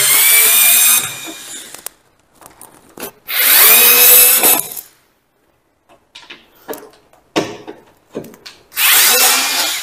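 INGCO 4 V cordless screwdriver running in reverse in three short bursts, each a whirring motor-and-gear whine, as it backs a Phillips screw out of two layers of wood with the torque set to full. The bursts come at the start, about three seconds in, and near the end.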